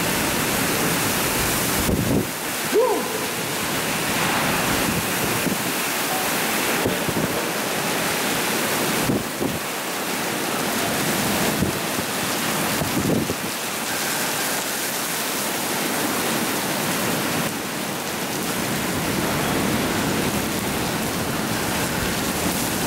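Severe tropical cyclone: heavy wind-driven rain and wind making a steady, loud rushing noise, with a few brief louder gusts.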